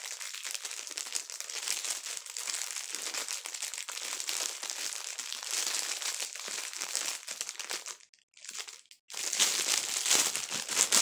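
Clear plastic packaging bag crinkling continuously as a stress ball is worked out of it by hand. The crinkling stops for about a second near the eight-second mark, then resumes louder near the end.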